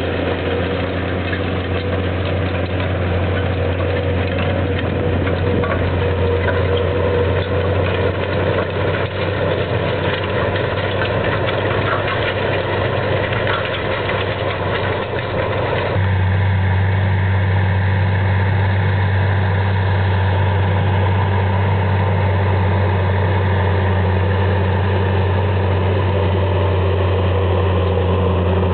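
Versatile four-wheel-drive tractor's diesel engine running steadily under load while pulling a Väderstad TopDown cultivator through the field. About halfway the sound shifts abruptly to a steadier, slightly louder hum.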